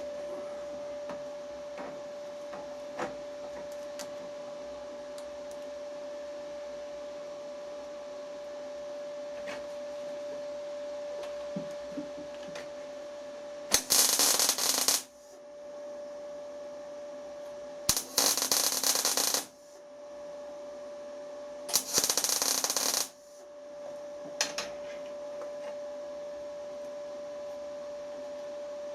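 Machine tool running with a steady hum, with three loud, harsh cutting passes about four seconds apart, each lasting about a second and starting with a click.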